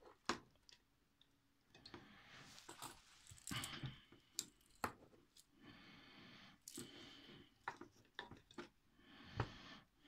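Faint clicks and rustling as the insulated wires and plastic plug of a car radio wiring harness are handled and sorted by hand.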